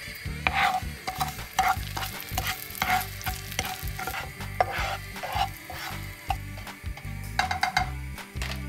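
A spatula scraping and stirring sugar into sizzling melted butter in a non-stick frying pan, in repeated short strokes roughly two a second, with a brief pause about two-thirds through; the sugar is being melted into the butter to start a caramel.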